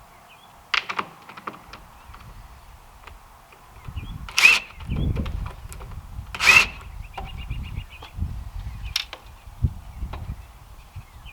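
Four sharp knocks with a metallic ring, spread over several seconds; the two loudest come about two seconds apart. A low rumble of handling and movement runs between them, with faint bird chirps.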